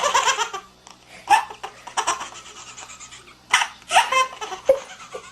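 A person laughing in short bursts, a few seconds apart.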